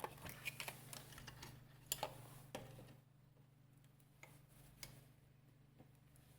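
Quick light clicks and taps for about three seconds, then a few single ticks, over a faint steady low hum.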